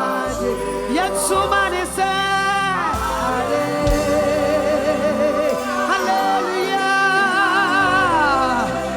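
Gospel worship song: a voice singing with vibrato and sliding runs over sustained backing music.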